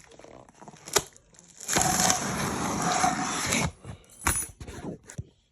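An amplifier's cardboard box and packing being opened by hand: a sharp click about a second in, then about two seconds of scraping and tearing, then a couple of short knocks.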